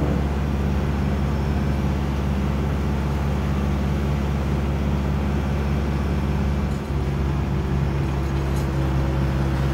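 Mahindra 4540 tractor's diesel engine running steadily under load as it drives a three-point-hitch post hole auger through the PTO, the bit boring into the ground.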